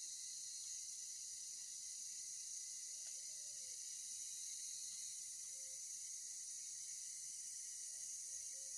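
Steady high-pitched insect chorus in forest, an unbroken drone. A few faint, short, low calls come through it about three seconds in, again midway and near the end.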